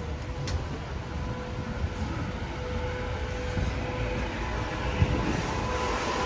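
Traffic rumble with an elevated subway train running overhead, a steady whine held through the rumble and the noise building toward the end.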